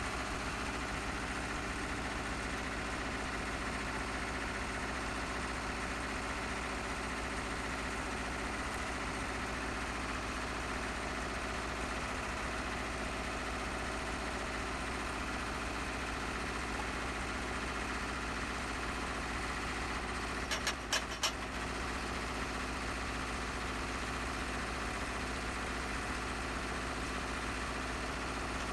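An engine idling steadily, with a short cluster of sharp clicks about twenty seconds in.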